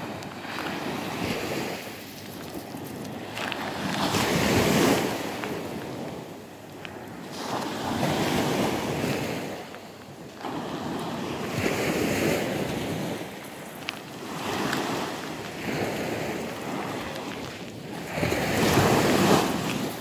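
Small sea waves breaking and washing up a shell-and-pebble beach, swelling and fading every few seconds, with wind rumbling on the microphone.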